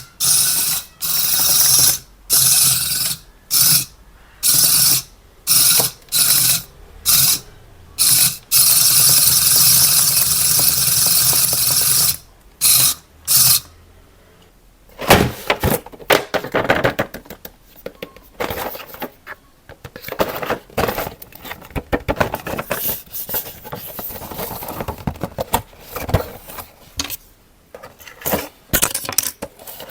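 Small electric motor of a toy RC vehicle whirring in about a dozen short on-off runs, one lasting about three seconds, then irregular clicks and plastic rattling as the toy is handled or moves.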